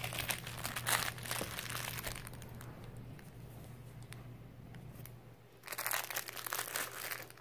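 Umbrella canopy rustling and crinkling as a puppy noses and pushes against it, in two spells: through the first two seconds and again near the end. A faint steady low hum runs underneath.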